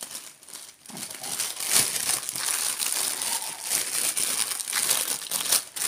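A clear plastic packaging bag and the smaller plastic packets inside it crinkling as hands handle it. The crinkling is quiet at first and then busy and fairly loud from about a second in.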